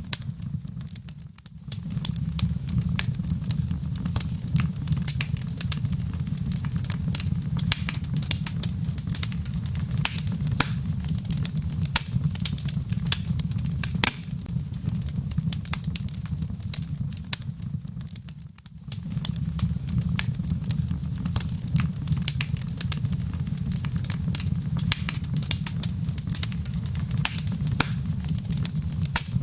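Wood fire crackling with scattered sharp pops and snaps over a low, steady rumble of wind. The whole sound dips briefly twice.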